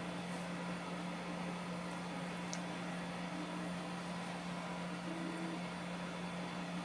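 Ender 3 3D printer running mid-print: a steady fan hum, with short changing stepper-motor tones as the print head and bed move.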